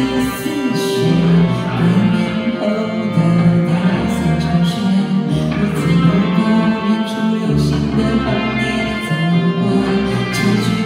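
A woman singing a slow song live, accompanied by an electric guitar playing chords over a moving bass line.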